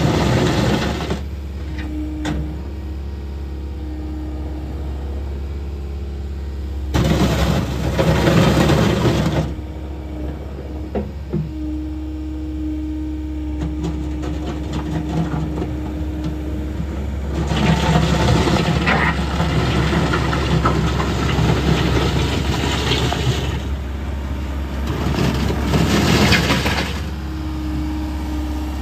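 Mecalac 6MCR wheeled excavator's diesel engine running steadily, with three louder stretches of a few seconds as it works under load and its bucket scrapes gravel and patching material along the road.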